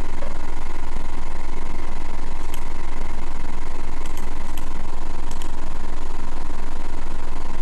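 A steady, loud, deep low-pitched drone with a fainter higher hum over it. A few faint ticks come about halfway through.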